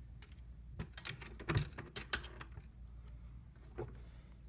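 Light metallic clicks and clinks of a loaded .223 cartridge being handled in a reloading press's shell plate, clustered around one to two seconds in, with the loudest a duller knock about a second and a half in.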